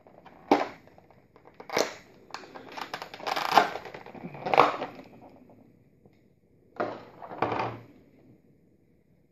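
Clear plastic blister packaging crackling and popping in sharp bursts as it is flexed and pried apart by hand. There is a run of crackles over the first five seconds, a short pause, then two more bursts near the end.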